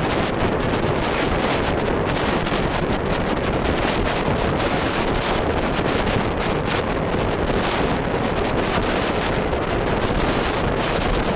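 Steady wind rush buffeting the microphone of a bicycle-mounted camera while the bike is ridden fast, a loud even noise that never lets up.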